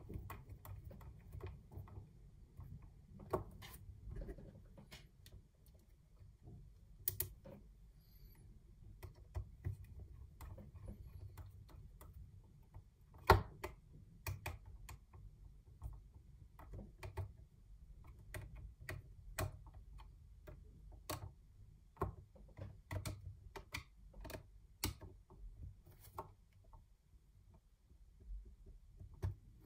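Irregular light clicks and taps of a DJI Mavic Air drone's plastic body shell being handled and pressed back together by hand, with one sharper click about halfway through. A low steady hum runs underneath.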